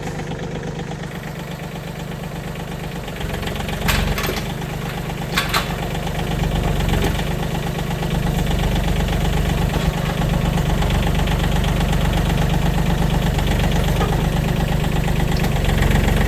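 John Deere 3320 compact tractor's three-cylinder diesel engine running steadily with its hydraulics engaged, getting louder about three seconds in and again a few seconds later. Two sharp clicks sound about four and five and a half seconds in.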